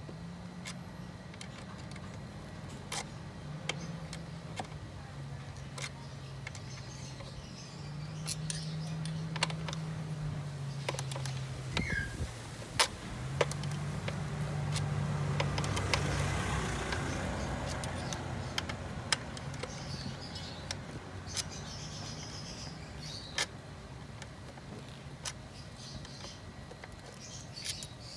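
Scattered sharp metal clicks and taps of pliers working a hose clamp on a hose at the throttle body, over a steady low hum that swells a little past the middle.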